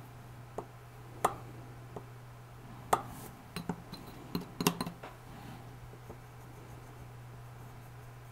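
A scattered run of sharp clicks and clinks from a metal hobby-knife handle and other small tools being picked up and set down on a work surface, thickest between about three and five seconds in, over a steady low electrical hum.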